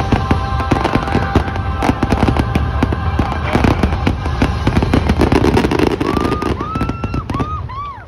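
A dense fireworks barrage: rapid overlapping bangs and crackles of bursting shells over show music. Near the end the bangs thin out, a few high whistles rise and fall, and the sound drops away.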